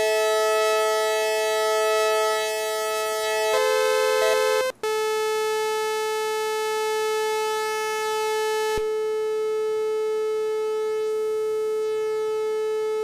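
Sequential Circuits Prophet-5 Rev 2 analog synthesizer, oscillator 2 sounding alone, holding steady notes. The pitches change about 3.5 s in, the sound cuts out for a moment near 5 s, then one note holds; about 9 s in a click comes and the tone turns less bright.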